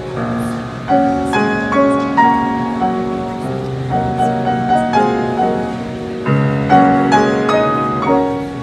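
Sauter Pure upright piano being played: a flowing piece of chords and melody, each note struck and ringing away, with new chords about every half second.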